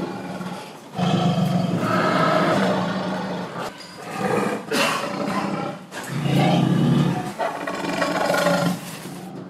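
Loud, long, low-pitched animal calls, three or four in a row with short breaks, the longest lasting two to three seconds.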